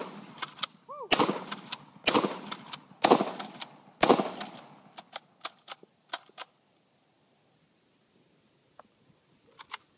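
Kel-Tec KSG 12-gauge bullpup pump-action shotgun firing four shots about a second apart, each followed by sharp clacks of the pump being worked. After the last shot come several quick clicks of the action being cycled without firing.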